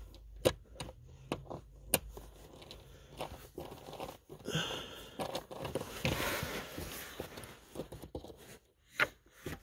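Sharp clicks of a socket and extension knocking against the small screw holding the blower motor resistor, then a few seconds of rustling and crinkling as the taped wiring harness is pushed aside. Another click comes near the end.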